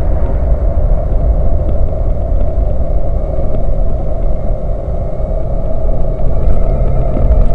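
Loud, steady rumble of an off-road vehicle driving along a sandy beach, picked up by a camera mounted low on the vehicle.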